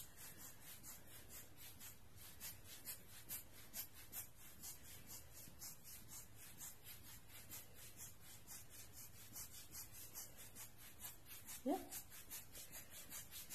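Rubber bulb air blower (Giottos Rocket) squeezed over and over, giving a quick run of soft air puffs, about three or four a second, as it blows wet alcohol ink across plastic film.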